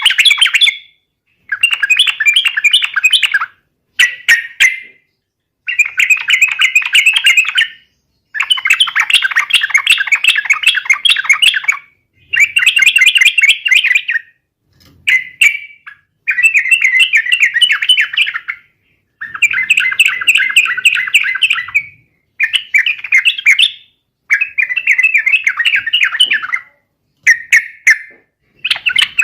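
Sooty-headed bulbul (trucukan) in full song, delivering about a dozen bursts of rapid warbling notes, each one to three seconds long with short silent gaps between. This is the loud, vigorous 'fighting' song that keepers play to provoke other trucukan into answering.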